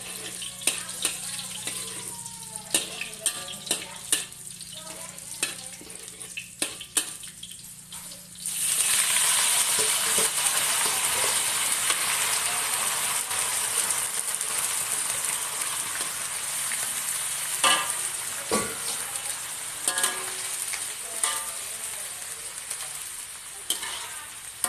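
A metal spatula scraping and tapping in a steel wok, then after about eight seconds melinjo leaves hit the hot oil and a loud, steady sizzle starts, with the spatula scraping on through it as the leaves are stir-fried.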